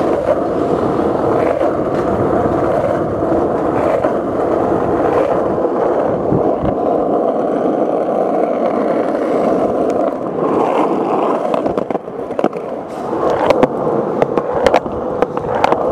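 Skateboard wheels rolling over pavement with a steady rumble. In the last few seconds the roll turns uneven, with a series of sharp clacks as the wheels cross the joints in a concrete sidewalk.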